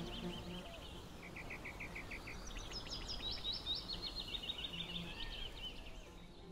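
Small birds chirping faintly over a steady low hiss: a quick run of short, even chirps about a second in, then series of high, falling chirps.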